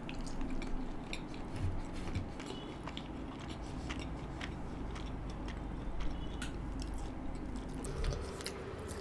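Close-miked chewing of a mouthful of rumali roti soaked in butter chicken gravy: soft, wet mouth clicks and smacks, scattered irregularly.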